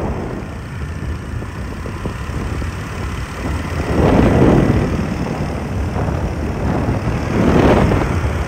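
Moped ride: wind rushing over the microphone with the small engine running, swelling louder twice, about four seconds in and again near the end.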